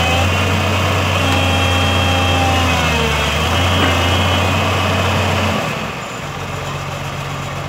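Old Komatsu crawler excavator's diesel engine running at raised revs with a steady low hum and a high whine over it, then dropping to a quieter idle about six seconds in.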